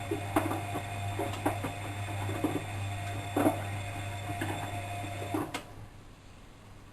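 Bosch WFM3010 washing machine's drum motor running during a wash, a steady hum with irregular soft knocks from the turning drum. The motor stops with a click about five and a half seconds in.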